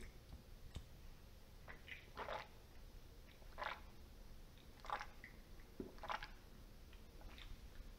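Faint gulping and swallowing as a man drinks from a can held tipped up to his mouth, a soft swallow about every second.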